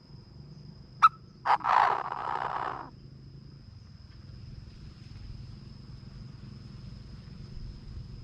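Chinese francolin calling: two short sharp notes about a second in, then a loud harsh grating call lasting about a second. A faint steady high tone runs under it throughout.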